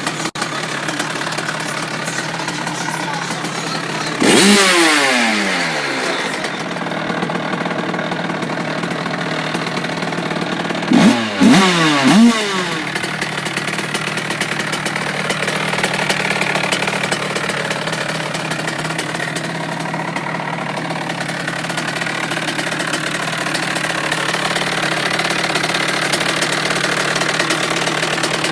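Rieju MRT's two-stroke engine, tuned with an 86 cc aluminium top-end kit, idling. It is blipped once about four seconds in, the pitch falling back over a couple of seconds, and then given three quick blips in a row near the middle.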